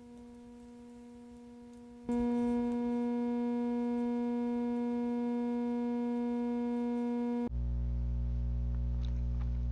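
Background music of steady held synthesizer tones, faint at first and much louder from about two seconds in; near the end the chord changes and a deep bass note comes in.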